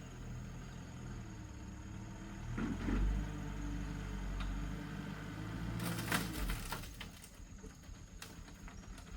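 A low engine running steadily, swelling about three seconds in, with a burst of clattering around six seconds before the engine sound drops away.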